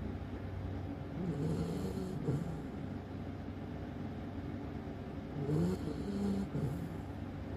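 Golden retriever puppy snoring in its sleep: two snores about four seconds apart, each with a wavering pitched note.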